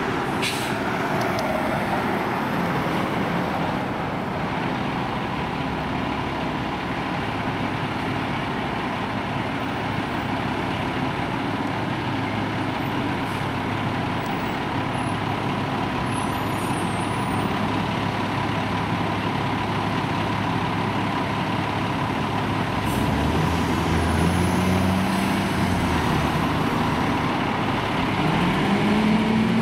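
Fire engine's diesel engine idling steadily, with a short hiss about half a second in, then revving up with a rising pitch and getting louder as the engine pulls out, about 23 seconds in and again near the end.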